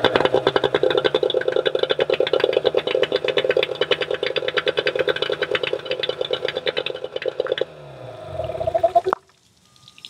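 Small two-stroke outboard motor running with rapid, even firing. Its kill-switch lanyard is pulled out, but it keeps running because the switch's white wire to the CDI unit is disconnected. About seven and a half seconds in, the running sound gives way to a winding-down sound that stops suddenly about a second and a half later.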